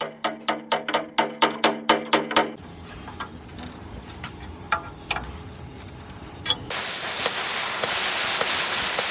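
Rapid ringing hammer blows on steel, about four or five a second, stopping about two and a half seconds in. After a quieter stretch with scattered clicks, a steady crackling hiss of welding starts near the end.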